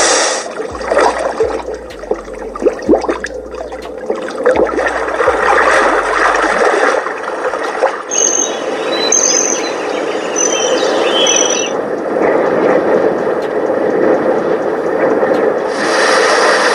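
Sleep-sound tracks playing from a Core Innovations Galileo alarm clock speaker, switching between several kinds of steady noise. The first has many crackling clicks, the next has short high chirps in the middle, and a smoother noise follows.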